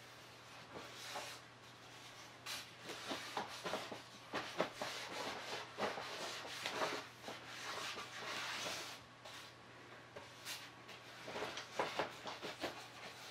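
Faint rubbing and scattered small clicks and taps of hand work with wet acrylic paint: a gloved hand smearing a thin layer of paint over a canvas and handling a plastic cup with a stir stick.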